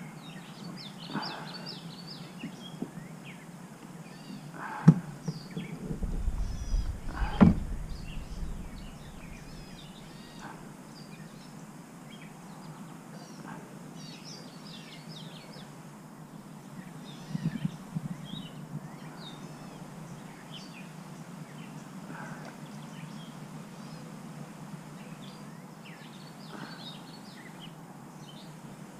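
Outdoor ambience with small birds chirping again and again over a steady low hum. Two sharp knocks come about five and seven and a half seconds in, with a short low rumble around them, likely from handling gear in the kayak.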